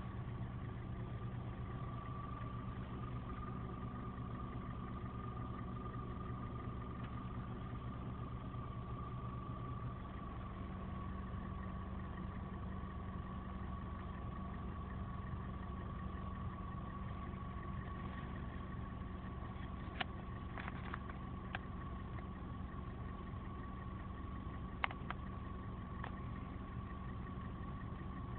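Hyundai Solaris engine running, heard inside the closed cabin, with a faint, steady high whistle from the belt tensioner pulley: the sign of a failing tensioner roller, which once replaced no longer whistles. A few faint clicks in the second half.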